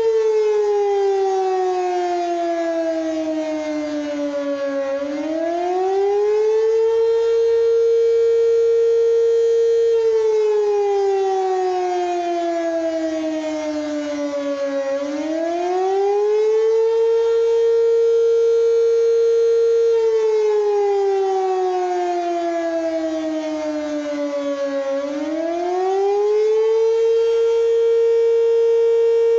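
Civil defense emergency siren sounding a wail during its routine weekly test. The pitch falls slowly for about five seconds, climbs back within a couple of seconds and holds high for a few seconds; the cycle comes round about every ten seconds, three times.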